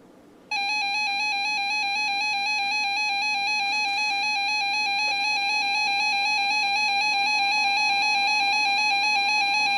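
Emergency Alert System two-tone attention signal, 853 Hz and 960 Hz sounded together: a steady electronic alarm tone that starts abruptly about half a second in, announcing an incoming emergency alert.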